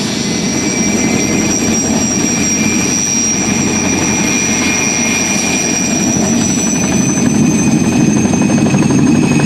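PZL Mi-2 helicopter's twin turbine engines and main rotor running on the ground: a steady high turbine whine over a thick, fast rotor chop. The whine edges slowly up in pitch and the sound gets louder about seven seconds in as it powers up for lift-off.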